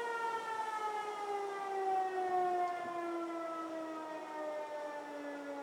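Outdoor tornado warning siren wailing, its pitch sliding slowly and steadily downward, sounding a tornado warning.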